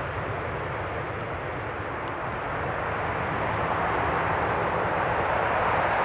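Jet engine noise of a Boeing 777F freighter on its landing, a steady rushing sound that eases slightly and then grows louder again in the last couple of seconds.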